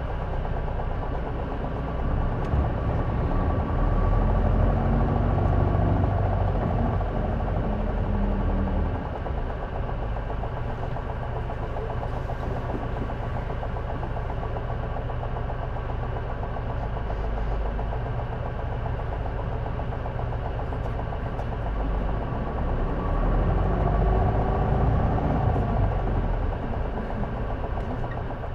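City bus diesel engine heard from inside the cabin while under way. It pulls harder twice, from about two seconds in and again past twenty seconds, each time getting louder with a pitched note rising over the engine. This is a J-Bus bus that the uploader says makes a strange noise from the exhaust or turbo area.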